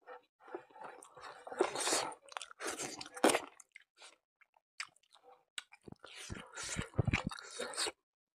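Close-miked chewing of a mouthful of buffalo innards curry and rice, wet mouth sounds in irregular bursts that pause about halfway and then start again, with a few low bumps near the end.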